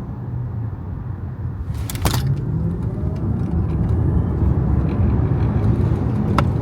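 Cabin sound of a new Tesla Model Y on the highway: steady road and tyre rumble with a faint rising electric motor whine. It grows louder about two seconds in as the car speeds up. A sharp click comes about two seconds in and another near the end.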